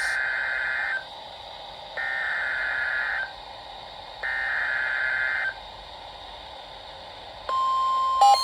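Emergency Alert System SAME header over a weather-radio broadcast: three screeching digital data bursts, each about a second long with a second's gap between them, over steady radio hiss. About a second before the end, a steady single-pitch attention tone begins, which signals that a new warning is coming.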